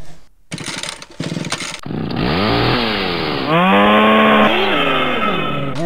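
A cartoon creature's sound effect: a rattling buzz, then a rough, voice-like croak that slides up and down in pitch.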